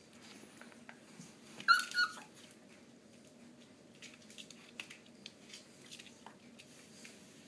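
A five-week-old Groenendael puppy gives one short, high-pitched yelp in two quick notes during play, about two seconds in. Faint scattered clicks follow.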